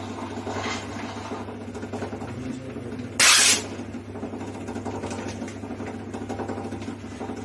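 Continuous band sealer running with a steady motor hum and belt whir as a stand-up pouch is fed through. About three seconds in, a short loud hiss of gas: the nitrogen flush into the pouch.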